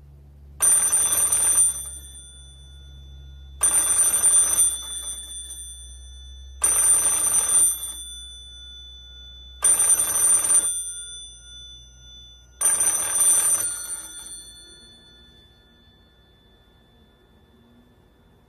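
Old-style telephone bell ringing: five rings about a second long, one every three seconds, each fading out before the next, then the ringing stops.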